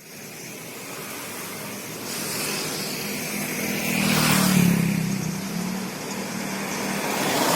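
A motor vehicle passing by: engine hum and road noise swell to a peak about halfway through and then fade, and another vehicle approaches near the end.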